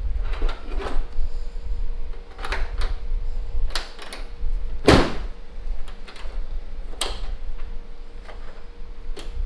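Hood pins and their spring clips on a Subaru Impreza GC8's hood being handled: a series of metallic clicks and knocks, the loudest about five seconds in, over a low rumble.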